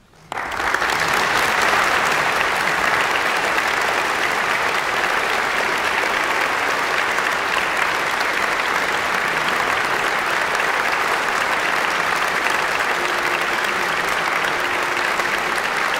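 Audience applause in a concert hall, breaking out suddenly from near silence at the end of the piece and then continuing steadily.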